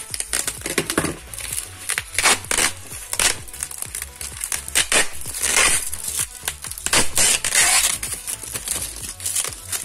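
Packaging crinkling and rustling in irregular bursts as the boxed camera is wrestled out of tight packing material, over background music.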